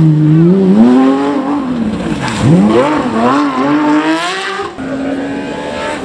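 Porsche 911 rally car's flat-six engine revving hard, the pitch climbing, dropping sharply at a throttle lift or gear change about two and a half seconds in, then climbing again. Near the end it cuts off abruptly and a second rally car's engine takes over with a steadier, level note.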